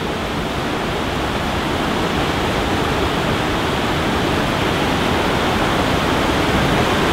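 Water rushing steadily down a river-rapids raft ride's chute, a constant waterfall-like rush.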